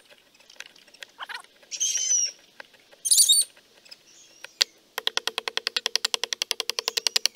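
A steel knife blade scraping and carving a hard hickory axe handle; over the last couple of seconds the blade chatters along the wood as a fast, even run of clicks. Chickens break in twice with short, loud, high-pitched calls.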